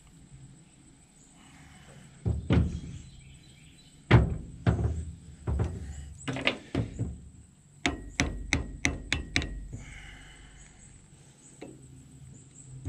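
Hammer blows on the steel double cardan yoke and U-joint bearing caps, seating the caps after pressing. Several separate heavy thunks come first, then a quick run of about six lighter, ringing metal taps.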